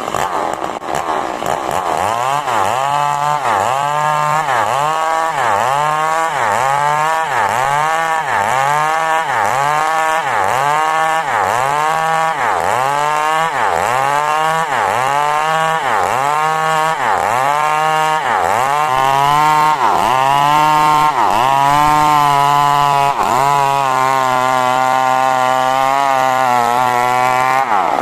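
Two-stroke chainsaw cutting coconut-palm wood into boards, its engine pitch dipping and recovering about once a second as the chain bites under load. Near the end it runs steadier and higher, then its pitch drops just before the end.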